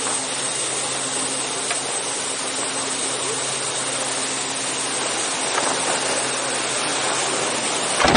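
Steady rush of wind and engine noise inside a jump plane in flight with its door open, with a low steady engine hum underneath.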